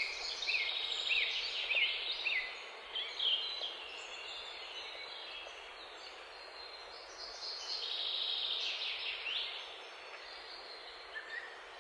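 Birds singing over a steady soft outdoor hiss: a run of short rising chirps in the first few seconds, then a dense trilling phrase about eight seconds in.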